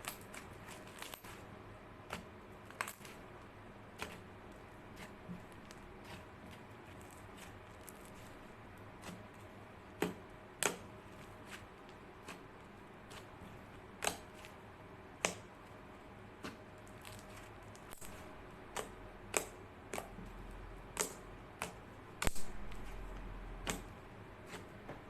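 Slime being handled and pressed for ASMR, making irregular sharp clicks and pops over a low steady hiss.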